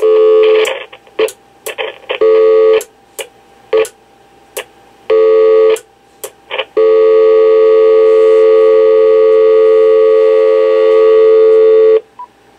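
Clarity C4230 amplified cordless phone sounding loud electronic tones: three short beeps about two to three seconds apart with button clicks between them, then one long steady tone of about five seconds that cuts off suddenly.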